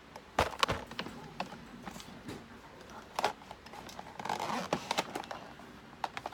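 White plastic storage drawers being slid out and handled, with sharp clacks and knocks of plastic on plastic, loudest about half a second in. Around the middle comes a rustling, sliding stretch as cosmetic compacts and cases shift in a drawer.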